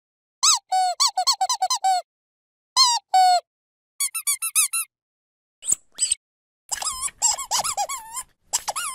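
Dog squeaky toy squeezed again and again in quick bursts of short squeaks, each squeak rising and falling in pitch, with brief silent pauses between bursts. The busiest flurry comes near the end.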